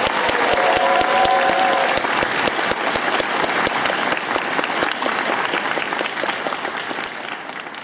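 Audience applauding, a dense, steady clapping that starts to taper off near the end.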